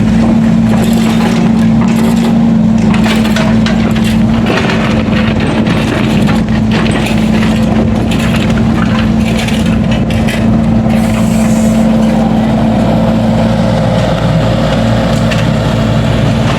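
Heavy construction machine's engine running steadily, with irregular clattering and cracking of material being broken up.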